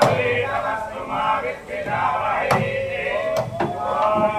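A group of voices chanting together, broken by several sharp cracks of coconuts being smashed against a steel trough as a temple offering.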